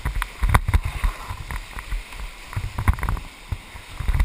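Whitewater of a river rapid rushing and splashing against an inflatable raft, with frequent irregular knocks and low thumps.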